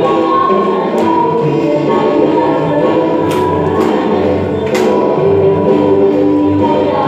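Tagalog Christian praise song playing: a group of voices singing together over a band backing, with a few sharp percussive hits.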